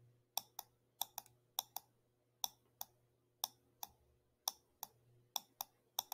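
Computer mouse button clicking repeatedly, about fifteen sharp clicks at an irregular pace, often in quick pairs, as a list is scrolled down one click at a time. A faint steady hum lies underneath.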